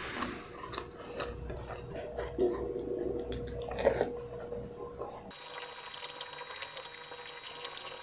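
Close-miked wet mouth sounds of someone eating rice and fried chicken by hand: chewing and lip smacking, with many small clicks. About five seconds in, the sound turns thinner and crackly.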